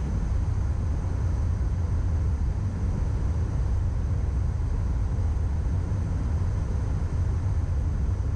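Steady low rumble of airflow and engine noise on the flight deck of a Gulfstream business jet descending on approach at about 170 knots.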